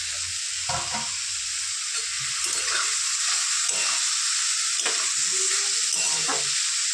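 Shredded cabbage and beans frying with onion, garlic and tomato in hot oil in a kadai: a steady sizzle, with a spatula scraping and knocking as the vegetables are stirred. The sizzle gets a little louder about two and a half seconds in.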